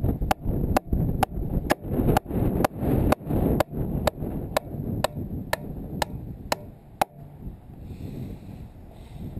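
Hammer driving a nail into a wooden board with steady blows, about two a second. The strikes stop about seven seconds in.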